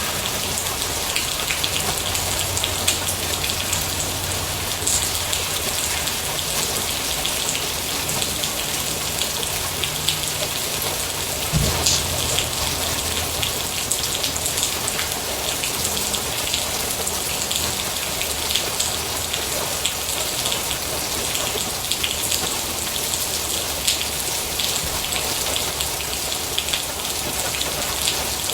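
Steady rain falling on a surface, a dense even hiss with many small drop ticks. There is a single low thump about twelve seconds in.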